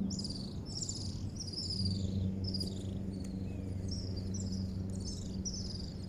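Small animals chirping: short, high-pitched calls repeating about twice a second, some higher and some lower, over a steady low hum.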